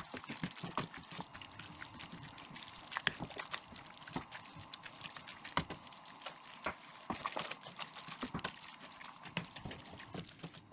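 Wooden spatula stirring diced sausage, sauerkraut and tomato paste in a stainless steel pot: wet squelching and shifting of the food, with irregular light knocks of the spatula against the pot.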